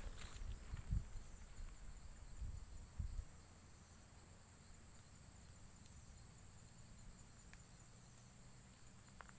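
Insects droning steadily in one high, even tone, with a few low thumps and rumbles in the first three seconds.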